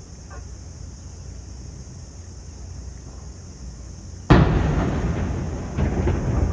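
Distant explosion from the marina's burning boats: a low steady rumble, then one sudden heavy bang about four seconds in, dying away slowly, with two smaller bangs near the end.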